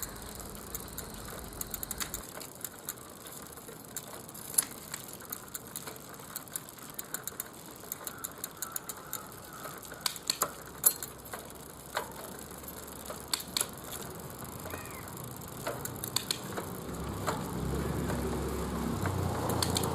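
A 21-speed Microshift bicycle drivetrain being worked: a faint ratcheting mechanism, with sharp clicks scattered through, loudest about halfway in. A low rumble rises near the end.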